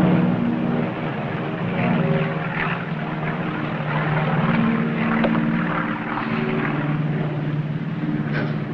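The four radial piston engines and propellers of a B-50 bomber droning steadily in flight, the pitch of the drone shifting slightly a few times.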